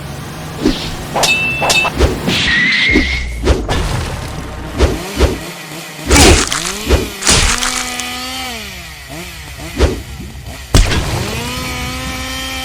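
Animated fight sound effects: a string of sharp hits and whooshes. Twice in the second half a pitched sound rises, holds steady for a second or two, then falls away.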